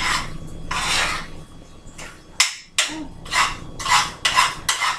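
A cooking utensil scraping the bottom of a frying pan, stirring noodles with egg as the egg sets and sticks. The strokes are short and rasping, slower at first, then about two a second in the second half.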